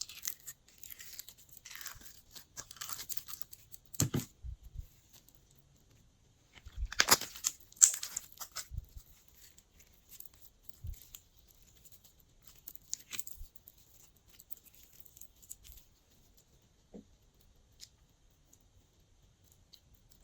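Glossy slime being squeezed, stretched and folded by hand, giving sticky crackles and small pops in bursts, loudest a little after the halfway mark, then only scattered faint pops.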